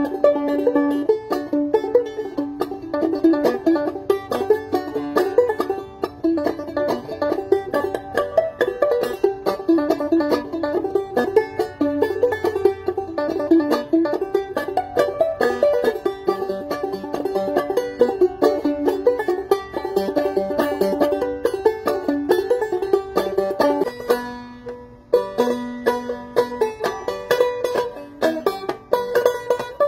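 Open-back banjo played solo in an old-time bluesy tune: a steady stream of plucked, ringing notes. The playing thins out briefly about 25 seconds in, then picks up again.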